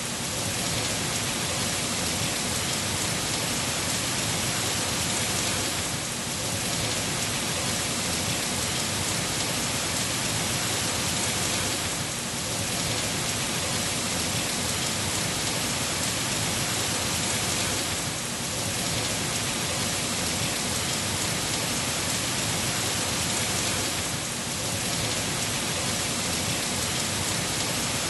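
Heavy rain falling steadily, a dense even hiss, with a slight dip in level about every six seconds.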